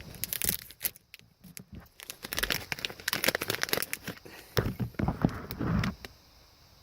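Irregular crinkling, tearing and clicking of plastic being handled, as the new LED cab-light bulbs and their small plastic parts are taken in hand.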